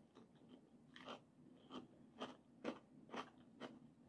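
Faint chewing of a crystal candy with a crunchy sugar shell and a jelly-like inside: soft crunches about twice a second.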